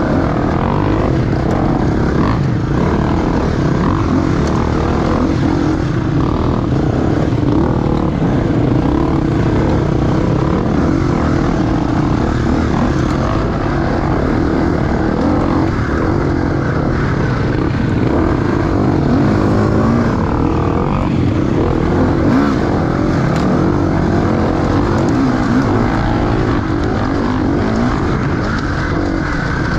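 Enduro dirt bike engine running continuously under a rider on a race lap, the revs rising and falling as the throttle opens and closes.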